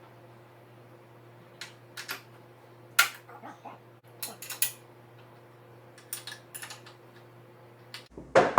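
Scattered light metal clinks and knocks of tools and steel parts being handled during crawler undercarriage work, over a steady low hum; the loudest knock comes about three seconds in. Near the end the hum stops and a louder knock follows.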